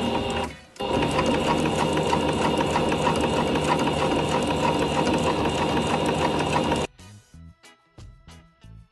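Electric sewing machine stitching steadily through layered patchwork fabric and foam, pausing for a moment just after the start, then running for about six seconds before stopping. Faint background music is left once it stops.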